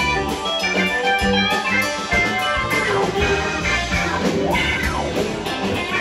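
Live rock band playing: an electric guitar lead over a drum kit and bass, with notes that slide up and down about four seconds in.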